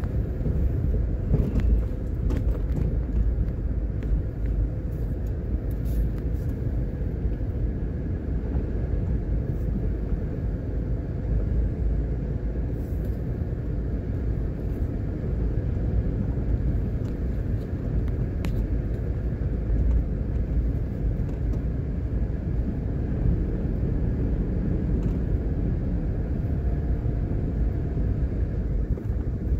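Steady low rumble of a car driving slowly, engine and tyre noise, with a few faint ticks scattered through it.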